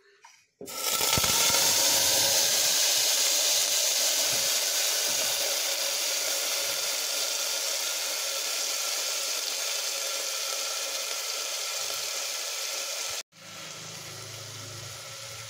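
Ground ginger, garlic and fennel paste sizzling in hot oil and ghee in a pressure cooker. The sizzle starts suddenly and loud as the paste goes in, then slowly dies down; after a cut near the end it continues more quietly.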